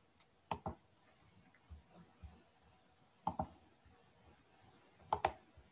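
Computer mouse clicks: three quick double clicks, the first about half a second in, the second just after three seconds, the third near the end, with a few fainter ticks between.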